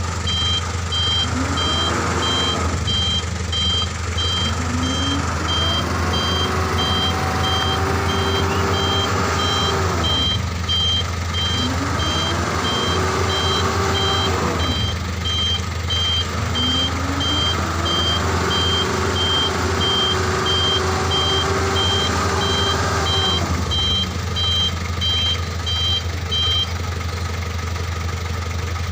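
A truck's reversing alarm beeping steadily, about two beeps a second, then stopping near the end. Under it the engine revs up, holds and drops back about four times as the truck manoeuvres.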